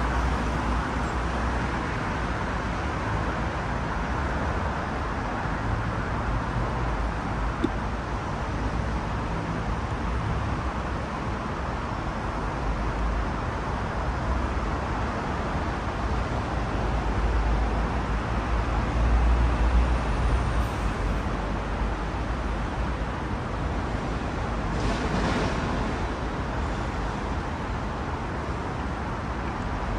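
City street traffic noise: a steady hum of passing vehicles with low engine rumble that swells and fades, and a short hiss late on.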